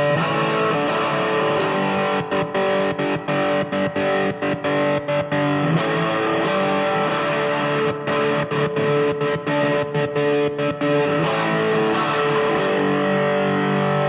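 Distorted red Charvel electric guitar through an amp, its sustained chords chopped into a stutter by a D'Addario Planet Waves American Stage Kill Switch cable: the signal cuts out and back in again and again, in places several times a second.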